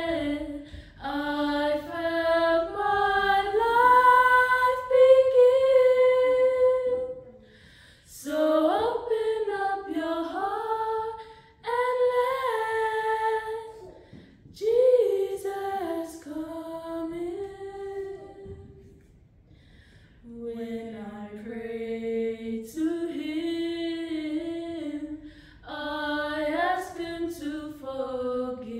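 Three voices singing a slow Christian hymn a cappella, in long sustained phrases with short breath pauses between them.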